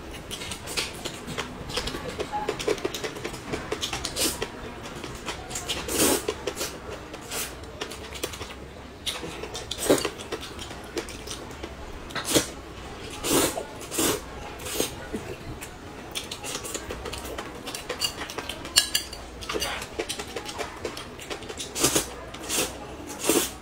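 A person slurping and chewing noodles, with chopsticks clicking against a plate now and then; short, irregular sounds every second or so, some much louder than others.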